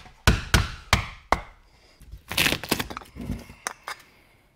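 Hammer blows on OSB sheathing, knocking out the plug cut by a 3-inch hole saw: four sharp knocks in the first second and a half, then rougher cracking and a few lighter knocks as the wood gives way.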